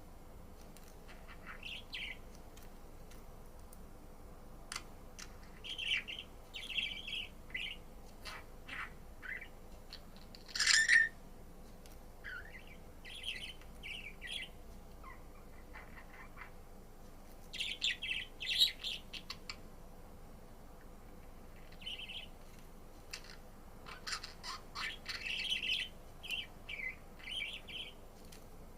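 Budgerigar chirping and chattering in short scattered bursts of high calls, with a single louder, sharp call about ten seconds in and busier flurries of chirps later on.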